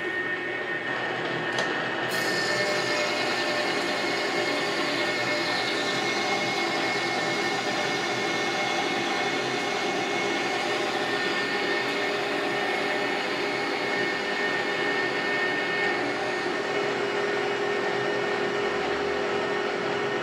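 Metal lathe running with the spindle turning, while a turning tool takes a facing cut across the end of a 1045 steel shaft. The cutting noise comes in about two seconds in and then holds steady over the machine's hum and a steady whine.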